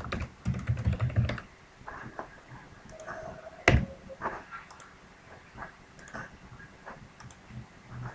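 Typing on a computer keyboard: scattered keystrokes, with one louder click about three and a half seconds in.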